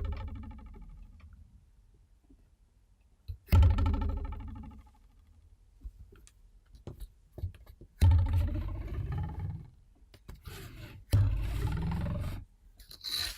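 Plastic ruler twanged over a desk edge, several times: each pluck gives a low buzzing slap against the desk that dies away over a second or two. In the later twangs the pitch bends up and down as the ruler's overhang shifts.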